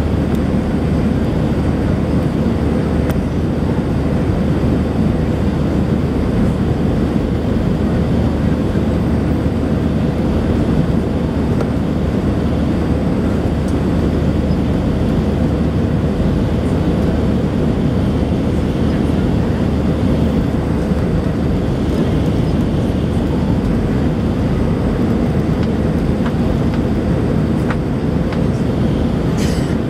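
Steady engine and airflow noise heard inside the cabin of an Airbus A320-200 climbing after takeoff, deep and even throughout.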